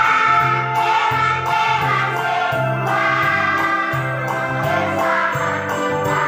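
Children's choir singing a Christmas hymn together over instrumental accompaniment with a regular bass line.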